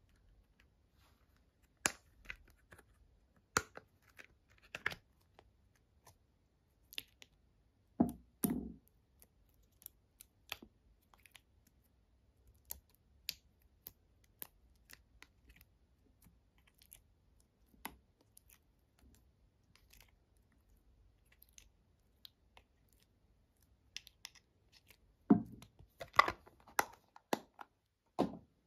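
Hands handling slime: scattered small clicks and taps of a plastic container, with a few soft wet squelches as coloured jelly slime pieces are pressed out of the segmented plastic tray onto clear slime in a bowl. The squelches are loudest about 8 seconds in and again a few seconds before the end.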